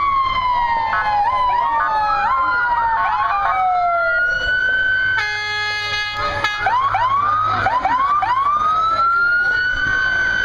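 Several U.S. Forest Service emergency-vehicle sirens sounding at once, overlapping wails sliding down and up in pitch. A horn blast of about a second comes about five seconds in, followed by a run of short yelps before a wail rises again near the end.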